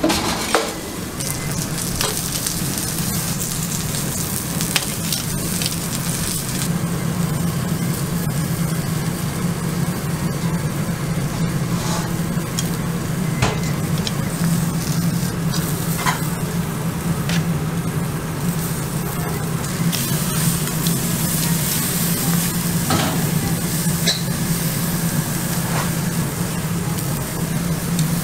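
Steaks and other food sizzling on a charcoal grill grate: a steady hiss with scattered pops and clicks, over a low steady hum.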